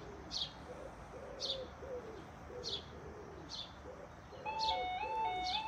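Birds calling, a pigeon-like cooing and a small bird's short high chirp about once a second; then, about four seconds in, the foot crossing's miniature-warning-light alarm starts up, a loud two-tone warble alternating evenly between two pitches, signalling that the lights have changed to red for an approaching train.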